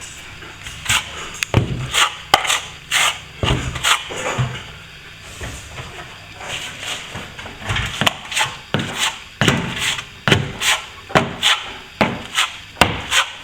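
Plastering tool scraping repeatedly across freshly applied plaster in short, sharp strokes, roughly one or two a second, with a brief pause about midway.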